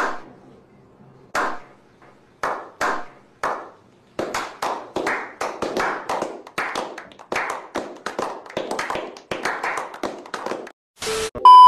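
A small group doing a slow clap: a few single claps spaced apart, then more hands joining and building into quicker applause. Near the end the clapping stops, and a short loud burst of noise is followed by a steady loud beep.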